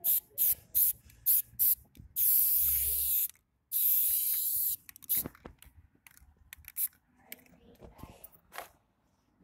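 Aerosol spray paint can spraying onto a concrete wall. First come quick short hisses, about three a second, then two longer sprays of about a second each, then more short, scattered hisses.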